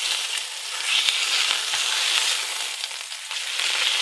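Ribeye steak sizzling in bison tallow in a smoking-hot carbon steel pan as it is slid around with steel tongs. The sizzle swells about a second in, eases briefly past the three-second mark and rises again, with a few light clicks from the tongs.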